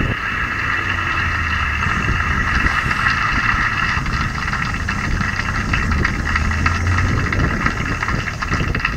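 Motorcycle engine running steadily under way, mixed with rushing wind noise.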